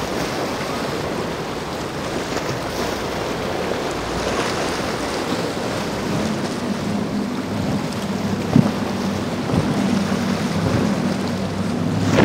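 Surf and wind buffeting the microphone, with a boat's engines coming in about halfway through as a steady low drone that grows slightly louder. A brief thump sounds about eight and a half seconds in.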